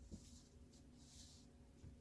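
Faint swishes of a broom sweeping a floor, two soft strokes about a second apart.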